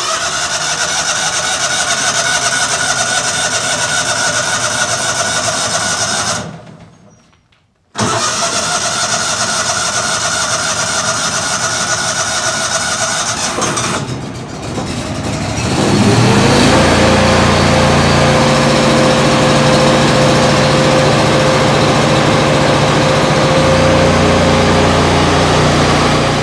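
Miller Bobcat 225 welder-generator's gasoline engine being cranked on its electric starter. It cranks for about six seconds without catching, pauses, cranks again, and about fifteen seconds in it fires, speeds up and settles into a steady run.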